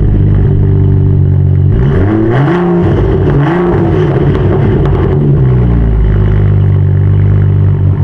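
BMW M235i's turbocharged 3.0-litre straight-six running through a muffler-delete exhaust on the factory tips: idling, then revved up and back down twice about two and three and a half seconds in, before settling back to a steady idle. The tone is nice and clean, with no rasp.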